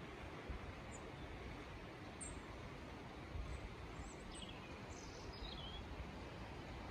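Faint, steady outdoor hiss with small birds chirping: several short, high calls through the middle, a few sliding down in pitch.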